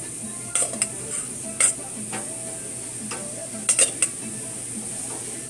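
Oiled eggplant sizzling on a hot grill, with a steady hiss and a handful of sharp metal clicks as pieces are laid on the grate.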